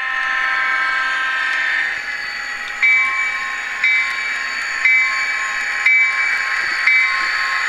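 Train sounds: a diesel locomotive horn held for about two seconds. Then a grade-crossing bell rings about once a second over a steady rushing hiss.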